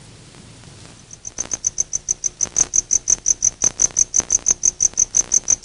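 A cricket chirping in a fast, even rhythm of short high chirps, about seven a second, starting about a second in.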